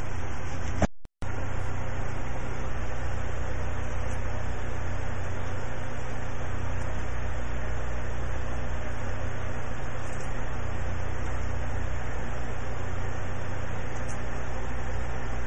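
A steady machine hum with a low drone, unchanging apart from a brief cut about a second in.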